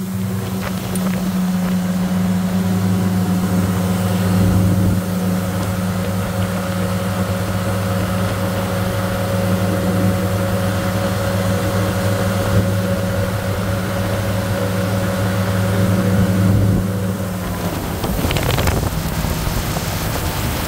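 Motorboat engine running steadily at cruising speed, a constant low hum, with wind and water rushing past the moving hull. About three seconds before the end the engine note drops away, leaving mostly the rush of water and wind.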